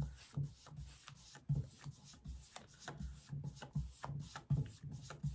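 Clear plastic bag crinkling and rustling as it is handled, a string of irregular crackles.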